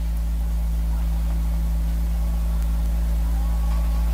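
Steady low electrical hum and hiss from an old archival recording, with no recitation; faint wavering tones come in over the second half.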